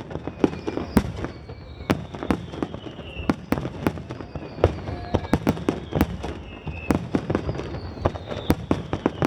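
Fireworks finale barrage: a rapid, irregular run of sharp bangs from bursting aerial shells, several a second, with a few whistles sliding down in pitch among them.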